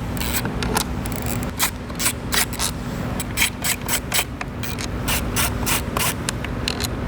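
Hand-tool work taking off a sport bike's rear body panel: a string of quick, irregular clicks, several a second, over rubbing and scraping of tool and plastic.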